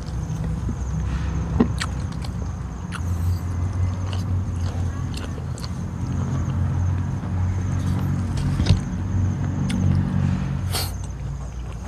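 Close-miked eating by hand: chewing with sharp mouth and bite clicks, the loudest twice, over a steady low engine-like rumble that swells through the middle.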